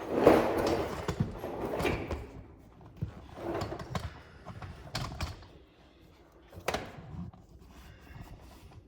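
Irregular knocks, clunks and rustling from a person shifting position and handling parts, busiest in the first two seconds and thinning to a few light taps near the end.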